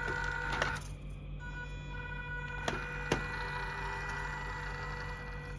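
MN82 1:12-scale RC Land Cruiser 70 crawling at slow throttle, its electric motor and ESC giving a steady high-pitched whine, a bit noisy, over a low hum. The whine drops out briefly about a second in. A few sharp ticks are heard near the start and about three seconds in.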